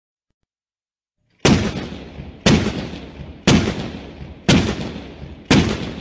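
Tank cannon fire sound effect: five heavy shots starting about a second and a half in, one a second, each a sharp bang trailing off in a rumble, the last tail still fading at the end.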